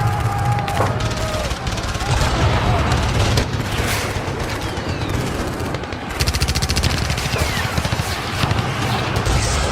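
Dense battle gunfire from a World War 2 battle sound effect: scattered rifle shots and bursts overlapping, then a long, rapid, even machine-gun burst from about six seconds in.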